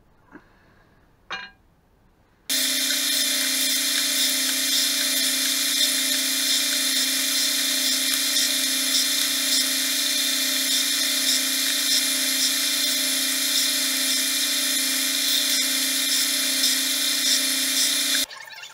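Bench belt sander running steadily while oak domino blanks are worked at it: a loud, even motor hum with a hissing belt. It comes in suddenly a few seconds in and cuts off just before the end, after two faint clicks.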